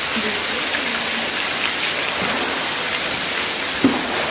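Heavy rain pouring down onto a paved courtyard, a steady even hiss, with a brief thump near the end.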